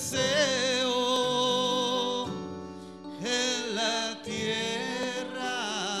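Slow Spanish-language worship song, a man and a woman singing long held notes with vibrato over sustained keyboard chords. It comes in two phrases with a short break about two seconds in.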